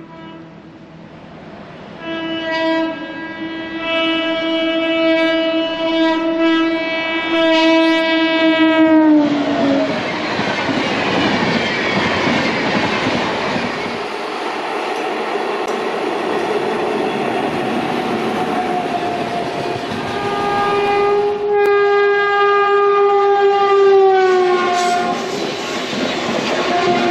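WAP7 electric locomotive's horn blowing a long blast whose pitch drops as the locomotive passes, followed by the loud rushing noise of the express going by at speed. A second long horn blast, also falling in pitch at its end, sounds near the end over the noise of the passing double-decker coaches.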